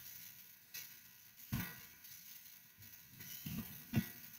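Faint computer keyboard typing: a few scattered key clicks over quiet room tone.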